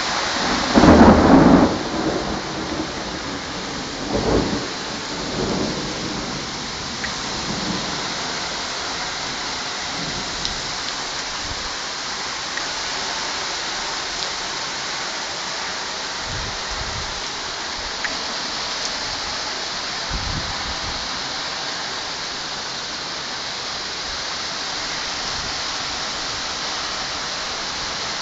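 Torrential rain pouring steadily in a severe thunderstorm. Thunder breaks loudest about a second in and rumbles again around four to six seconds.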